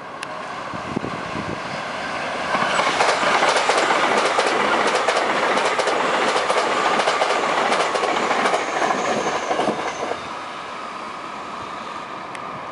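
MTR Tung Chung Line K-Train, an electric multiple unit, passing close by: its wheels clatter over the rails, with rapid clicks, building to a loud peak lasting several seconds, then dropping away suddenly about ten seconds in as the train runs off.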